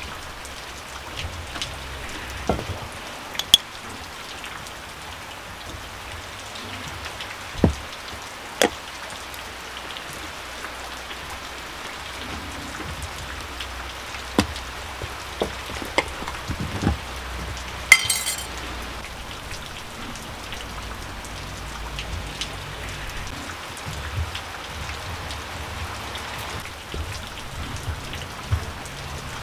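Steady patter of rain, with scattered knocks and clinks of spoons against an enamel bowl as milk is poured into flour and the dough is stirred by hand; one brighter, sharper clink comes a little over halfway through.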